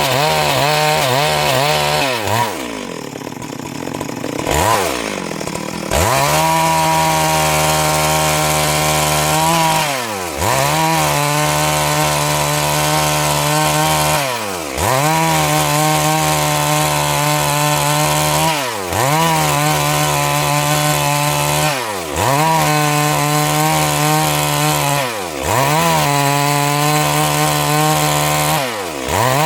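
Stihl MS 382 two-stroke chainsaw at high revs, ripping siris logs into boards. A few seconds in, the engine falls away and revs back up. After that its pitch dips briefly and recovers about every three and a half to four seconds.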